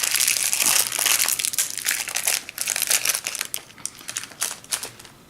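Plastic parts bag crinkling as it is handled, dense for the first two seconds or so, then thinning to scattered rustles and small clicks.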